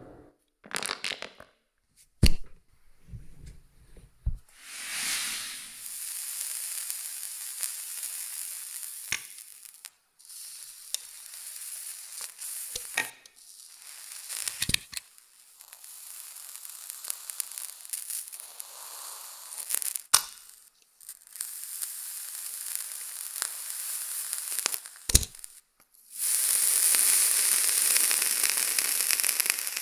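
A heated knife blade melting and cutting down through a plastic object clamped in a vise: sizzling and crackling hiss, broken by sharp clicks and knocks. The loudest knock comes about two seconds in. A louder, steadier hiss sets in near the end.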